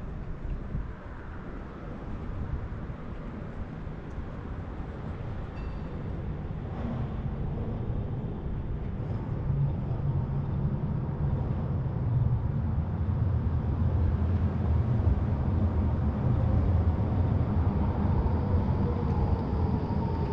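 Trams pulling into a street tram stop: a low rumble grows steadily louder, and near the end a motor whine falls in pitch as a tram slows.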